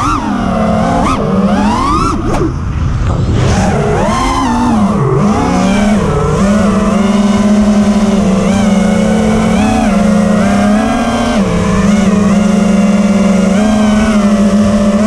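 FPV quadcopter's electric motors and propellers whining. The pitch swoops up and down sharply with the throttle for the first few seconds as the drone dives. It then settles into a steadier hum with short upward blips as the drone flies low and slow.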